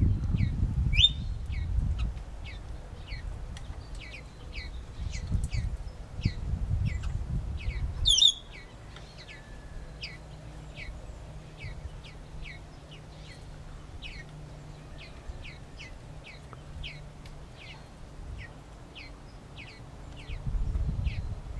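A small bird repeats short chirps that slide downward in pitch, about two a second, with a couple of louder, sharper chirps; a low rumble sits under the first part.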